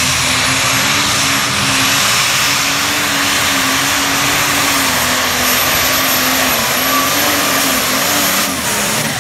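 Diesel engine of a pulling tractor at full throttle, dragging the weight-transfer sled down the track: a loud, continuous roar with a high whine over it, the pitch wavering under the load and easing off slightly near the end.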